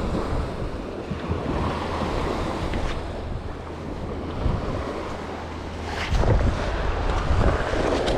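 Surf washing up on the beach with wind buffeting the microphone, the rumble growing louder about six seconds in. A few short knocks and rustles of handling gear come near the end.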